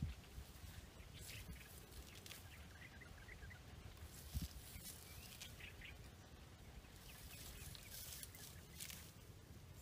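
Faint rustling and crackling of leafy, dry scrub as someone moves through the bushes and picks leaves, with a single low thump about halfway through. A few faint bird chirps.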